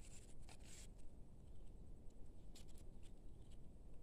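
Faint rustling and handling noise as a long fishing pole is swung out and its line set in the water: a few short scratchy brushes in the first second and a couple more past the middle, over a low steady rumble.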